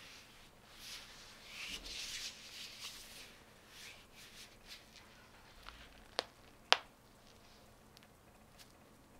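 Nitrile gloves rubbing and rustling as gloved fingers are interlaced and pressed together, worked down onto the hands, with scattered light ticks. Two sharp snaps of the glove material come about half a second apart past the middle, the second the loudest.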